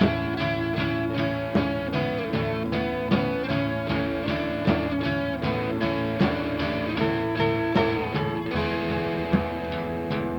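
Instrumental psych-folk music: plucked guitar over a steady beat, with a held melody line that slides between notes.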